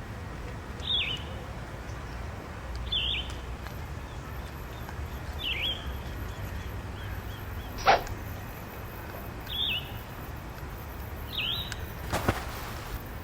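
A bird calling: short, high chirps that each drop quickly in pitch, repeated about every two seconds over a steady low background rumble, with a sharp click about eight seconds in.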